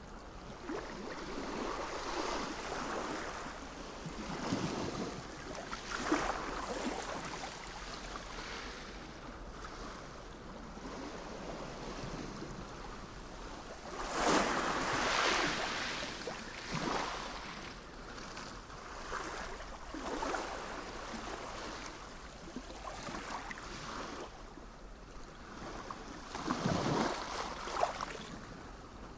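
Sea waves washing in, rising and falling in swells, with the biggest wave about halfway through and another near the end.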